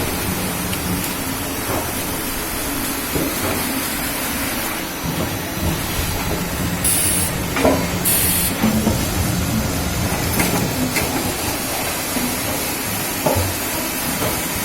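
Wood veneer peeling machine running: a steady rushing noise over a low hum, with scattered knocks and two short high hisses a little past the middle.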